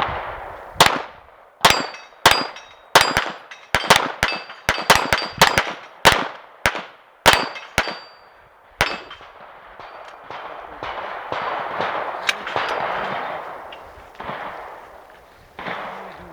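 Glock pistol firing a rapid string of about fifteen shots over some eight seconds, with steel plate targets clanging and ringing briefly as they are hit. The shooting stops about nine seconds in, leaving a stretch of fainter noise.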